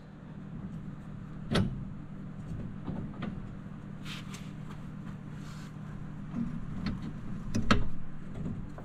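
Scattered metal clicks and clinks of shock-mount bolts being fitted by hand into a steel lift-kit bracket on a side-by-side's suspension, the loudest knock near the end, over a steady low hum.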